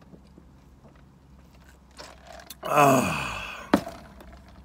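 Faint sipping through a straw, then a loud man's burp about three seconds in that slides down in pitch, followed by a short click.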